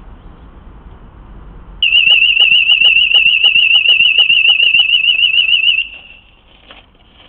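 Dahua AirShield ARA13-W2(868) wireless outdoor siren sounding a loud, high-pitched rapid warble for about four seconds, set off by a person entering the detection zone, then cutting off.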